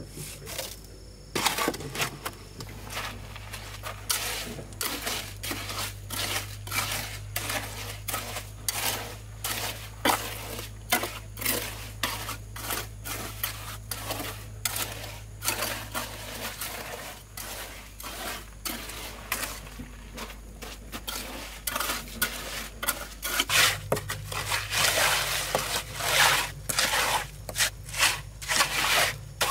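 Metal trowel clinking, tapping and scraping on stones and wet mortar in a rapid, irregular run of clicks and knocks as a stone wall is laid. A low steady hum sits underneath for most of it, dropping out for a few seconds past the middle.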